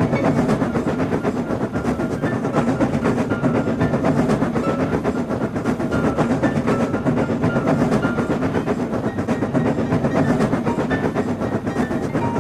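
Train running sound effect: a steady rumble of wheels on track with a fast, even clickety-clack.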